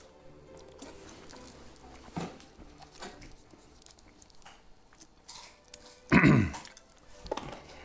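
Faint chewing, with a loud throat-clearing cough about six seconds in.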